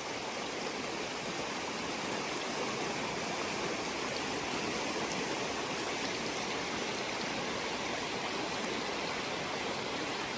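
Creek water running over rocks: a steady rushing.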